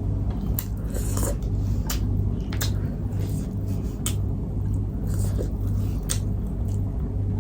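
Close-miked eating: wet chewing and mouth smacks about once or twice a second, over a steady low hum.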